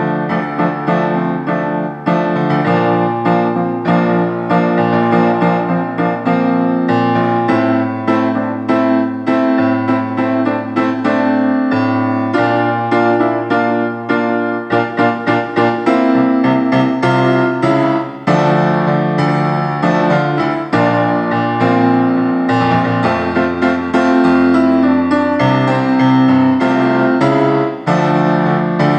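Piano accompaniment: held chords over bass notes, changing about every two seconds.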